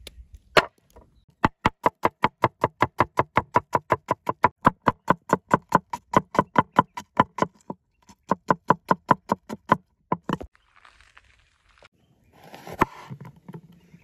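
A steel cleaver chopping through onion onto a wooden cutting board in a quick, even run of knocks, about five a second, with a short pause in the middle. A single heavier chop comes near the end.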